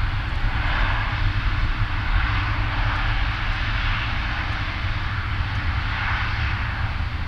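Boeing 747-400's four jet engines at takeoff power as the airliner rotates and lifts off: a steady roar with a deep rumble underneath.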